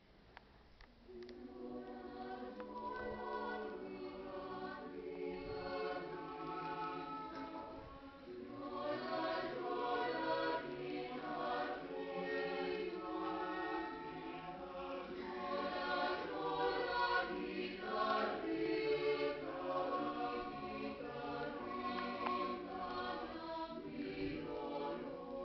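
Mixed choir of men and women singing in parts, coming in about a second after a brief click. The singing grows louder about nine seconds in.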